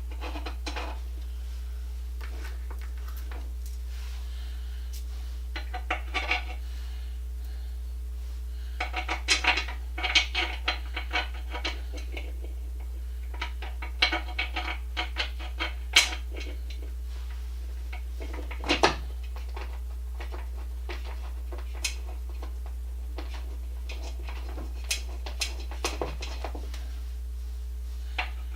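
Small metal screws and hardware clinking and rattling in short clusters as bolts are started by hand into an exercise bike frame, over a steady low hum.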